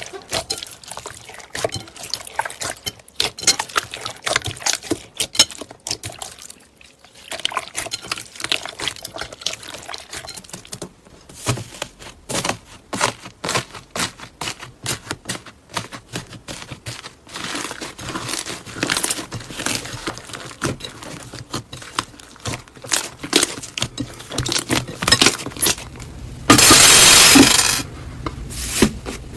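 Slime being squeezed and stretched by hand, making rapid wet, sticky clicks and pops. Near the end there is a louder continuous crackling rush lasting about a second and a half.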